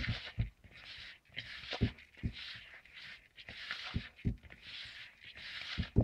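A hand rubbing and stirring fine grated soap powder in a plastic bowl: a run of rasping swishes about once a second, with a few dull low thumps, some in pairs.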